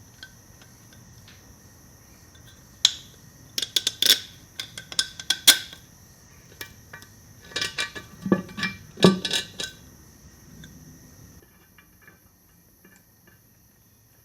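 Scattered metallic clinks and clanks of tools, bolts and a steel transmission oil pan being handled as the pan is refitted, in irregular clusters with the loudest strikes in the middle.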